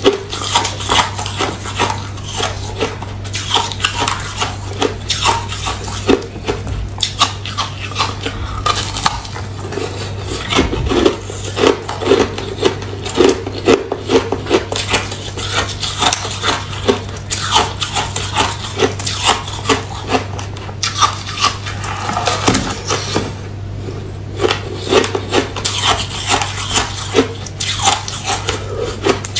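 Chewing and crunching mouthfuls of frozen foam ice: dense, rapid crunches with brief pauses, over a steady low hum.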